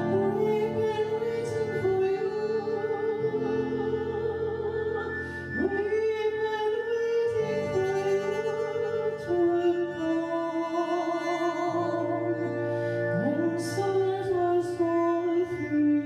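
A woman sings long held notes in an operatic voice, sliding up into a note about five and a half seconds in and again near the end, over sustained droning tones from a long-string harp.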